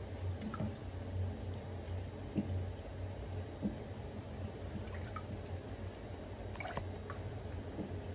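Bathwater in a plastic tub lapping and dripping as hands wash a baby monkey, with a few small splashes, over a steady low hum.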